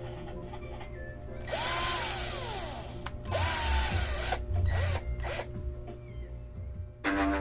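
DCK KDJZ22-10 cordless driver drill test-run with the trigger: a first run about a second and a half in, its motor pitch rising and then winding down, a second run about three seconds in, then several short blips. Music comes in near the end.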